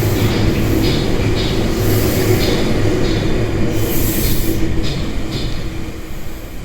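Tobu 100 series Spacia limited-express train running through a station: a steady rumble of wheels on track with repeated short high clatters, growing fainter near the end as it moves away.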